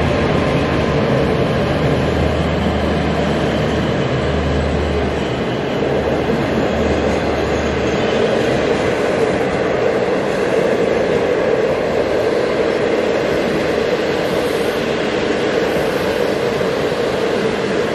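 HXD1D electric locomotive passing close by with a passenger train, a steady rumble of wheels on rail. A low drone sounds for the first eight seconds while the locomotive goes by and then drops away as the coaches roll past.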